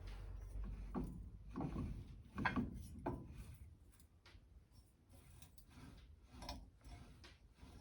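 Handling knocks and clatter: a handful of short hard knocks in the first three seconds, the loudest about two and a half seconds in, then a few lighter taps.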